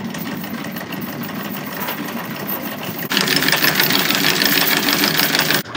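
Electric anchor windlass running, hauling the anchor chain in over the gypsy. About three seconds in the sound turns louder and brighter, and it cuts off shortly before the end.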